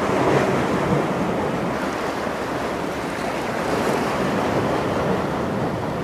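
Steady rushing of sea surf and wind, with wind buffeting the microphone; it swells a little near the start and again about four seconds in.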